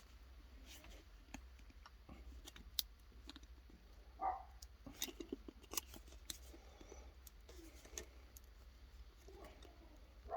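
Faint scattered clicks and small scrapes of hand-work on a super glue tube whose nozzle is stuck shut, being worked open with a tool.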